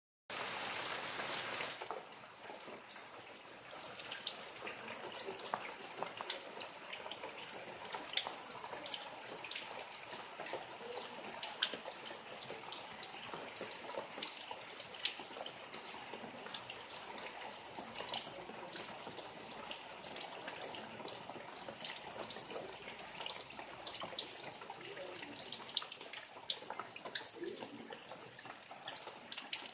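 Rain falling: a steady hiss scattered with many separate drops landing as sharp ticks. It is heavier and louder for the first two seconds, then eases to a lighter, even fall.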